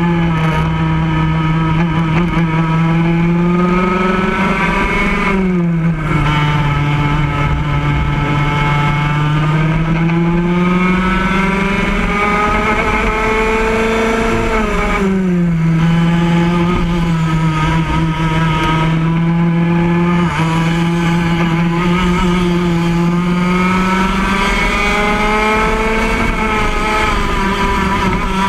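Racing go-kart engine heard up close, running at high revs, its pitch climbing slowly as it accelerates down the straights. The revs drop sharply twice, about five and a half and fifteen seconds in, as the kart slows for corners, then build back up.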